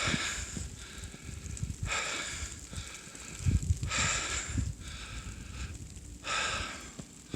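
A person breathing heavily while walking, about one breath every two seconds, with irregular low thumps between breaths.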